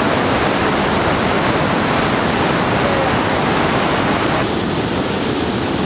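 Fast-flowing water rushing through an irrigation canal's sluice gate, a loud steady rush like a small waterfall.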